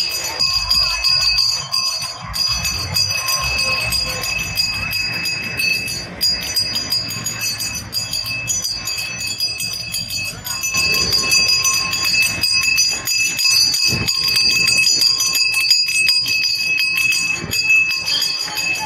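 A bell rung rapidly and without pause, its clear ringing tones held steady, with a low rumble underneath.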